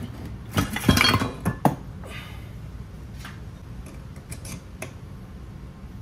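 Steel engine parts clattering and clinking against each other: a loud run of clanks about a second in, then lighter scattered clicks as connecting-rod caps and a wrench are handled.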